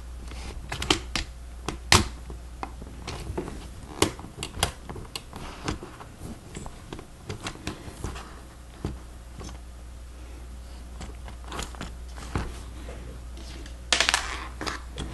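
Plastic Lego Technic pieces clicking and snapping together as parts are pressed into place. The clicks are irregular, with a short clatter of plastic near the end, over a steady low hum.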